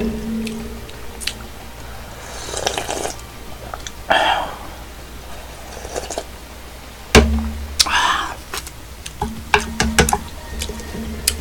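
A person slurping beef and radish soup broth, several slurps a second or two apart, one of them drunk straight from the bowl. Spoon and chopsticks click against ceramic bowls, with a heavy knock about seven seconds in.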